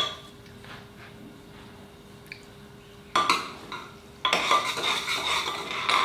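Metal spoon stirring and scraping in a steel cooking pot on the stove: a clink at the start, then two stretches of scraping and clinking, one about three seconds in and a longer one from about four seconds in. A faint steady hum sits underneath in the quieter gaps.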